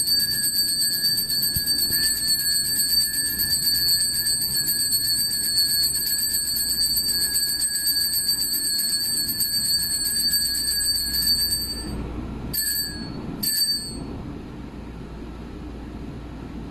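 Altar bells rung with a fast, continuous jingling ring for about twelve seconds, then two short rings about a second apart. The ringing marks the elevation of the consecrated host at Mass.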